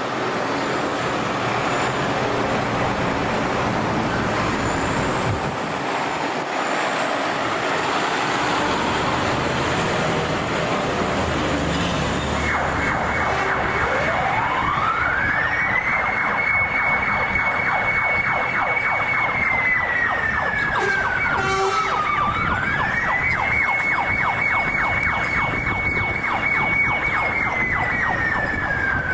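Scania fire truck pulling out with its diesel engine running, then about halfway through its siren comes on in a slow wail. The siren rises, holds a high note for a few seconds, falls, rises and holds again, and is falling once more near the end.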